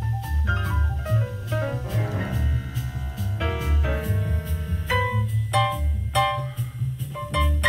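Background instrumental music with a steady bass beat and a quick falling run of notes about a second in.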